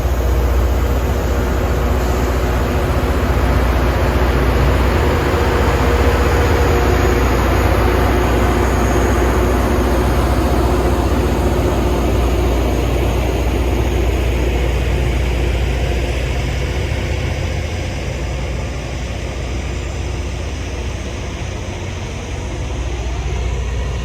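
Loram rail grinder passing at work: heavy engine rumble under a loud, steady hiss of the grinding stones on the rail, easing off somewhat in the last third.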